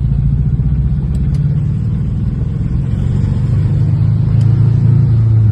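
Car engine running while the car drives slowly; the engine note rises a little and gets louder over the last two seconds.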